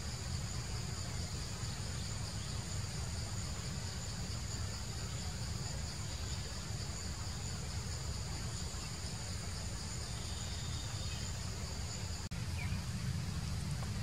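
Steady chorus of insects buzzing in several high bands, over a low rumble, with a brief break at a cut near the end.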